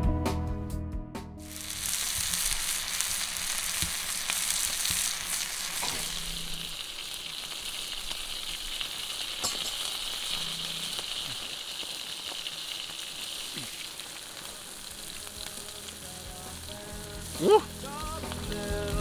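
Food frying in a pan over a campfire: a steady sizzle. Near the end a brief, loud squeak with a rising, bending pitch cuts in.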